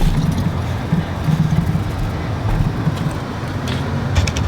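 Vehicle engine idling steadily, with a few light clicks near the end.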